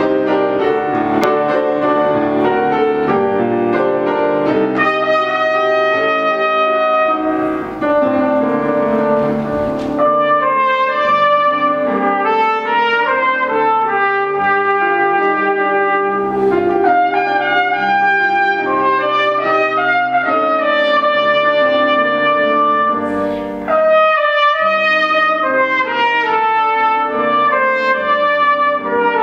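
Solo trumpet playing a classical melody over piano accompaniment, in a line of held and moving notes.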